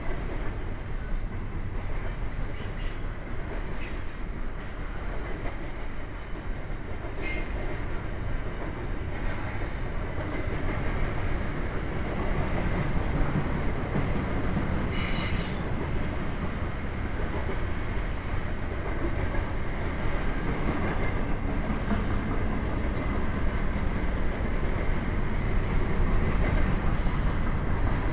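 Double-stack intermodal well cars rolling past on steel rail: a steady rumble of wheels and car bodies, with short high squeals from the running gear a few times, the longest about halfway through.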